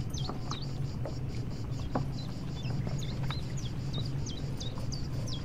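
A ship's engine droning steadily, with rapid short high chirps over it, each falling sharply in pitch, several a second.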